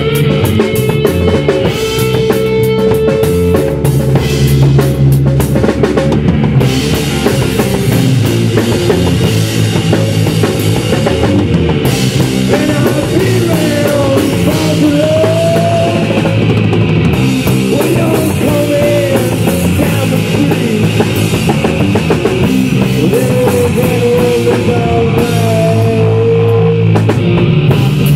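A three-piece rock band playing live: electric guitar, bass guitar and a drum kit. High gliding guitar notes come in about halfway through and again near the end.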